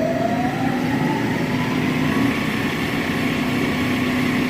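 Smithy AutoMate LT1440 CNC lathe spindle spinning up on a freshly replaced spindle with new, smooth bearings. Its whine rises in pitch and levels off about two seconds in, then runs steadily over a lower hum.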